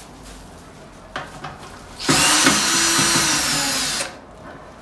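A small electric motor whirs loudly for about two seconds, starting and stopping abruptly.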